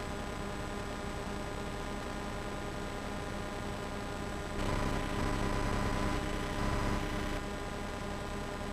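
Steady hiss and electrical hum of an old videotape transfer, with a louder, noisier stretch from about halfway to three-quarters through.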